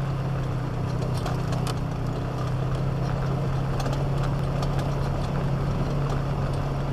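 Vehicle engine running steadily with a constant low drone, driving slowly on a rough gravel track, with scattered light clicks and rattles.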